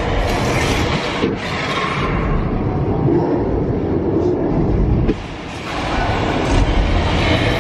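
Sound effects of the King Kong 360 3-D ride's Skull Island battle, playing as a loud, continuous rumbling din. It dips briefly about five seconds in.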